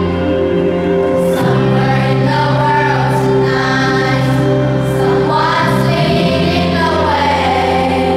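A children's choir singing an English song together over instrumental accompaniment. The voices come in about a second in.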